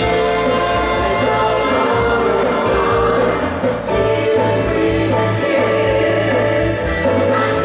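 Live show band with drums and bass playing, with the cast singing together over it.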